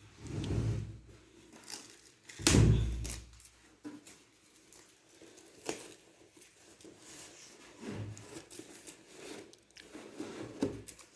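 Packaging being handled during an unboxing: crinkling and rustling, with scattered clicks and a heavier thump about two and a half seconds in.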